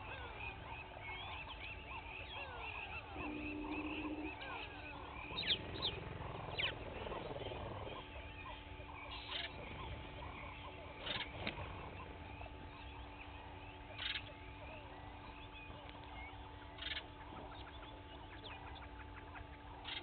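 Several wild birds calling and singing together in a morning chorus, with a thick tangle of calls around a quarter of the way in. In the second half one short, sharp call repeats every two to three seconds.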